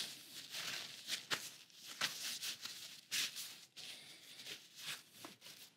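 Faint, irregular rustling and soft taps of hands rolling a ball of crab filling on a cutting board.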